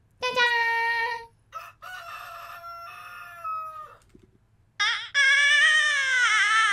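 A high-pitched human voice imitating a rooster's crow: a short note, a longer middle note, then a long loud call that falls in pitch at the end.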